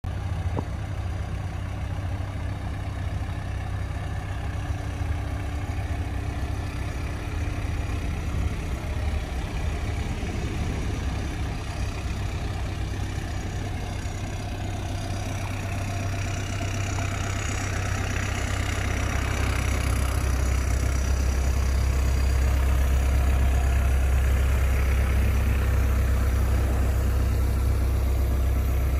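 Caterpillar 305.5D mini excavator's diesel engine idling steadily, growing louder about two-thirds of the way through.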